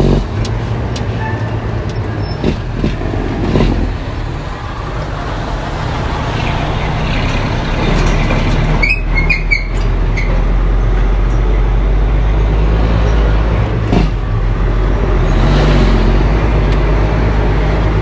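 Heavy truck's diesel engine running steadily, heard inside the cab; its note eases off about four seconds in and builds again from about eight seconds. Brief high squeaks about nine seconds in and a single sharp click near the end.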